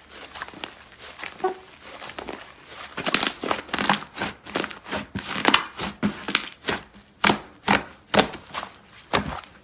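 Slime being squished and pressed by hand, soft and crackly at first. From about three seconds in it turns into a run of louder squishes, a little more than two a second.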